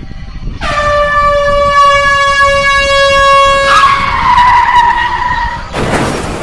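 A train horn sounds one long steady blast of about three seconds, then changes to a lower tone that sags in pitch. Just before the end there is a short noisy crash as the toy locomotive drops into a hole in the sand.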